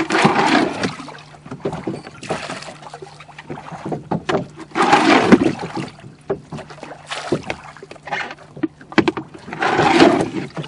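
Wooden rowing boat being rowed: the oars swish through the water in strokes every two to three seconds, with scattered knocks of wood and gear in the boat between them.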